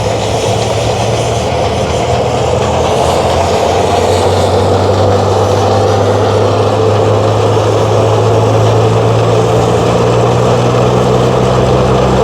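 Antique threshing machine running with a steady mechanical whir over a low hum, the hum growing stronger partway through.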